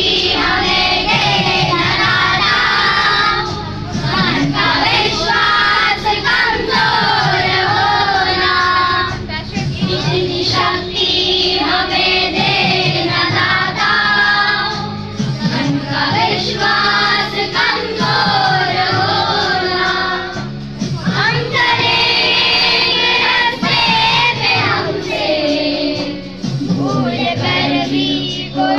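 A group of children singing a prayer together, line by line with short breaks between phrases, over a steady low drone.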